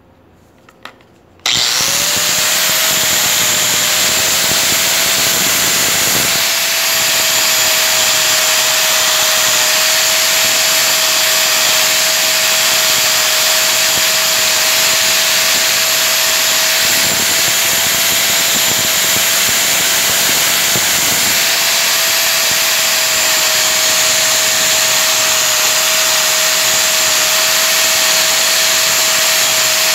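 An electric motor-driven machine starts about a second and a half in, spins up and runs steadily and loudly: a rushing hiss with one steady whine in it.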